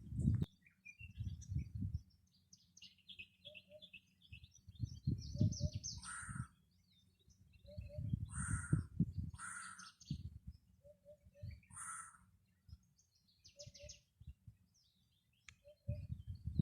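Wild birds calling in the morning: high chirps and trills, with four louder, harsher calls spaced a second or more apart. Bursts of low rumbling noise come and go underneath.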